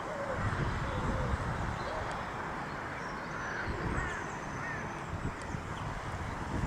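Birds calling outdoors: a series of short rising-and-falling calls, lower-pitched in the first couple of seconds and higher-pitched in the middle, with thin high chirps. Wind rumbles on the microphone throughout.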